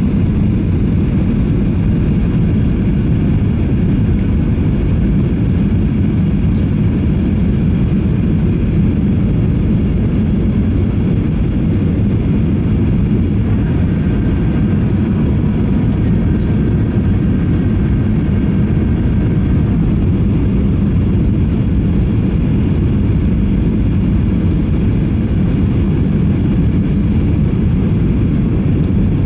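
Steady cabin noise of a jet airliner on its landing approach: the engines and the air rushing past the fuselage, heard from inside the cabin as an even, low noise. A faint thin tone comes in about halfway through and fades again a few seconds later.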